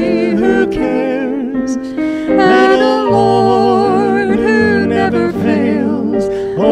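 Gospel song playing: a sung melody, held long with vibrato, over instrumental accompaniment.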